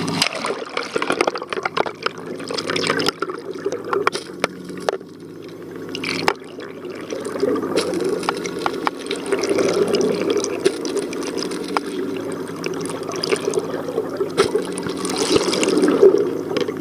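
Muffled underwater sound from a camera held just below the sea surface: water sloshing and bubbling against the housing, with scattered clicks. A low steady hum from the boat's engine runs underneath.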